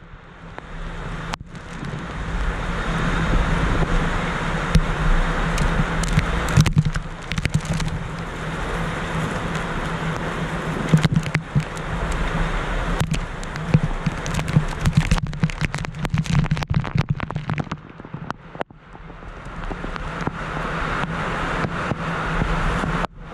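Heavy rain and gusting wind in a storm, buffeting the microphone, with many sharp cracks of raindrops striking the camera. The noise dips briefly a few seconds before the end.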